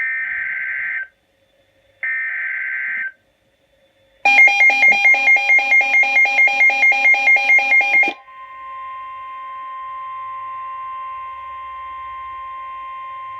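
Emergency Alert System alert tones: two harsh, buzzing digital header bursts of about a second each, then a rapidly pulsing alert tone at about four beats a second for about four seconds, then a steady alarm tone just above 1 kHz for about six seconds that cuts off near the end. The header bursts are the SAME data code that opens an EAS message, and the steady tone matches the 1050 Hz NOAA Weather Radio warning tone.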